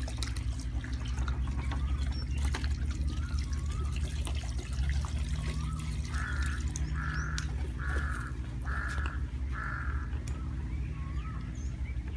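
A crow caws five times in an even series, starting about six seconds in, among repeated short chirping birdcalls. A steady low rumble runs underneath.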